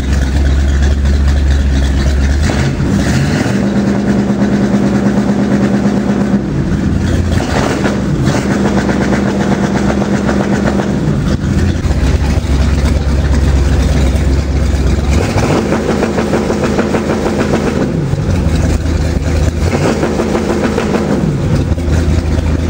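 Carbureted V8 boat engine revved up several times from idle and held against an MSD Soft Touch rev limiter set at 3000 rpm, then dropped back to idle. At the limit the ignition cut makes it misfire, and the limiting comes on a little before 3000 rpm.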